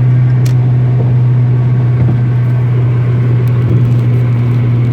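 Steady drone of a car driving on the highway, heard from inside the cabin: engine and road noise as a constant low hum. A single short click about half a second in.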